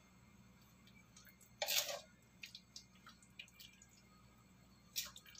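Rawon broth being spooned from a wok into a bowl with a metal spoon: a short splash of poured liquid about one and a half seconds in, light clinks and drips, and another brief splash near the end.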